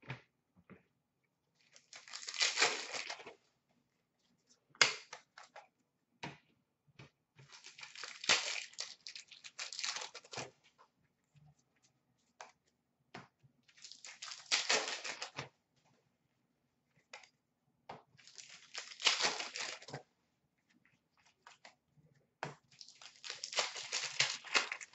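Trading cards handled and sorted by hand: five spells of papery rustling and sliding as the cards are flipped through, with light clicks and taps between them.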